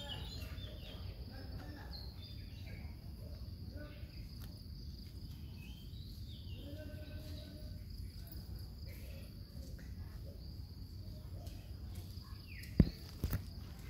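Outdoor ambience of insects, a steady high-pitched drone, with faint bird chirps over a low wind rumble. Two sharp knocks about half a second apart near the end.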